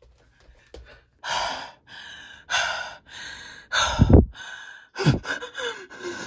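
A woman breathing hard and fast, winded from dancing: loud gasping breaths in and out, starting about a second in. The loudest breath comes about four seconds in, with a low thud.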